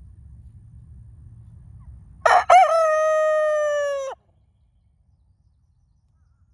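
A young rooster crowing once, about two seconds in: a short broken opening and then one long held note that sags slightly in pitch before cutting off.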